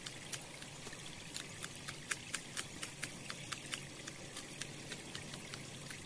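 A small stream trickling and pouring, faint and steady, with a quick, irregular patter of small sharp ticks running through it.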